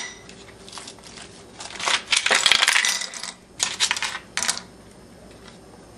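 Ice cubes tipped into a frying pan, clattering against the pan and each other: a main rattling clatter about two seconds in, then two shorter rattles. A sharp click at the very start.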